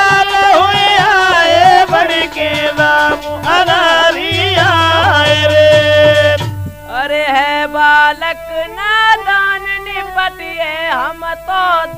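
Indian Holi folk music: a lead melody with sliding, bending notes over dholak hand-drum beats. The drumming drops out about six and a half seconds in and the melody carries on more sparsely.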